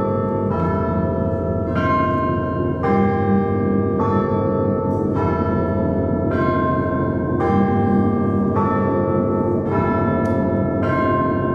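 A set of church bells hung in wooden frames, struck one after another in a steady sequence of different pitches, about one strike a second, with each bell ringing on under the next.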